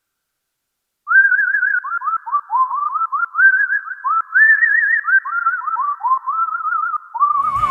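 Roland SH-01 Gaia synthesizer playing a programmed human-whistle patch: a whistled melody with quick warbling trills and upward scoops into its notes, starting about a second in. Guitar music comes in at the very end.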